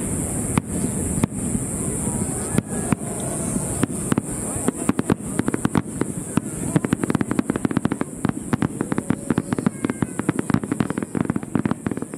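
Fireworks going off: a few separate bangs at first, then from about four seconds in a rapid, dense crackle of many small reports.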